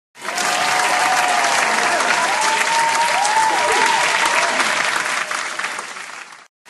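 Audience applauding: dense clapping that swells in abruptly just after the start and fades away near the end.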